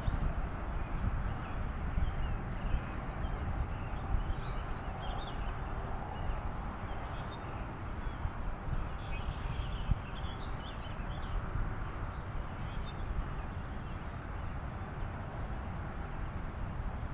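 Wind buffeting the microphone in a low, steady rumble, with small birds chirping now and then in the background.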